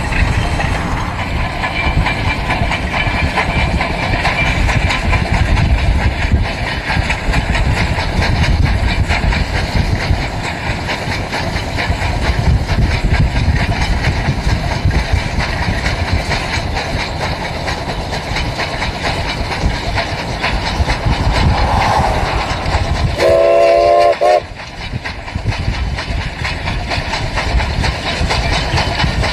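Durango & Silverton No. 486, a Baldwin K-36 2-8-2 narrow-gauge steam locomotive, running past with its train in a steady heavy rumble. Its whistle gives one chord-like blast a little over a second long about three-quarters of the way through, then cuts off sharply.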